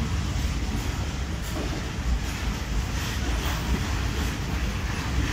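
ICF passenger coaches rolling past at low speed as the train pulls out. There is a steady low rumble of wheels on rail, with a few faint clacks over the rail joints.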